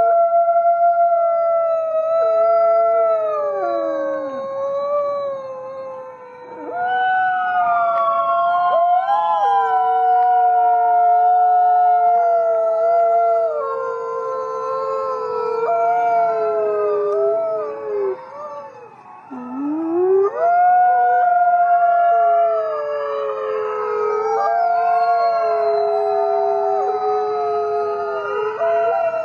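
Several dogs howling together in chorus, long held howls overlapping at different pitches and sliding up and down. There are two brief lulls, about a fifth of the way in and about two-thirds in, each ending with a new howl rising in pitch.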